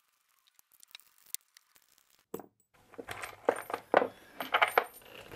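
Loose metal chair bolts clinking and rattling against each other as they are handled, a run of sharp clinks in the second half after a near-quiet start.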